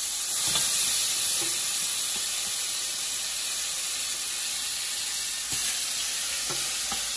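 Curry-marinated goat meat and vegetables frying in a smoking-hot pot of oil and browned curry powder, a steady loud sizzle, with a few light knocks.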